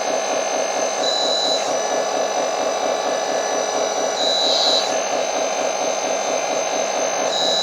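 The 1/14 RC hydraulic bulldozer's electric hydraulic pump running with a steady hum while the ripper is tilted. A higher whine comes in briefly three times, about a second in, about four seconds in and near the end.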